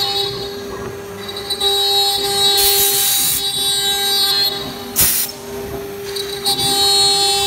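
STM1325 CNC router spindle running with a steady whine while the bit cuts MDF, with a hissing burst of cutting noise about three seconds in and a short sharp crack about five seconds in.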